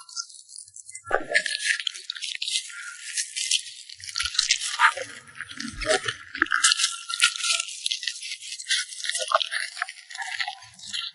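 French bulldog chewing and crunching food close to the microphone: a dense, uneven run of crisp clicks and crackles.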